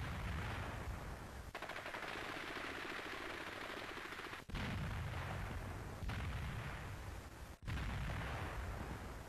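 Battle gunfire: rapid machine-gun fire for about three seconds, with deep rumbling booms of artillery before and after. The sound changes abruptly several times, cut together with the pictures.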